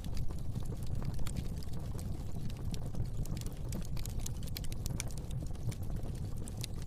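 Fire in a fireplace crackling: a steady low rumble of flame with frequent short, sharp crackles and pops at irregular intervals.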